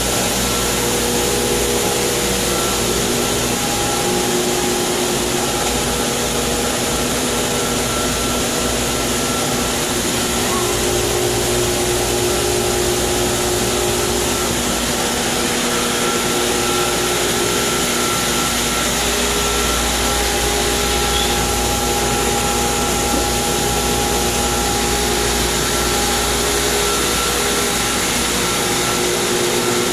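Pool filtration pumps running steadily: an even rushing hum of motors and water moving through the piping and filters, with a few steady whining tones that drop out and come back.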